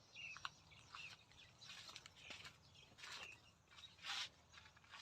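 Faint birds chirping: several short, scattered calls, a louder one about four seconds in.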